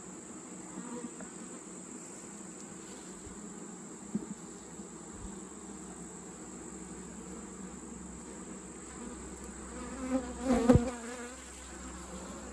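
Honey bees buzzing steadily around an opened hive. About ten seconds in, a louder, wavering buzz passes close, with a sharp knock.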